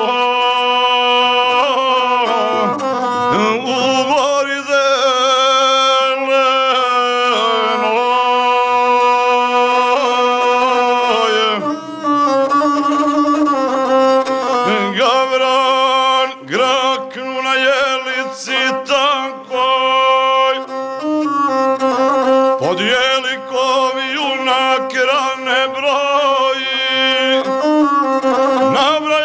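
Gusle, a single-string bowed folk fiddle with a skin soundboard, played in a continuous, heavily ornamented melody, the accompaniment to a Serbian epic song. The melody shifts to a new pattern about twelve seconds in.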